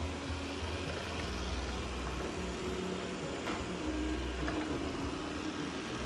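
Shark IQ robot vacuum running across a hardwood floor: a steady motor hum under the hiss of its suction.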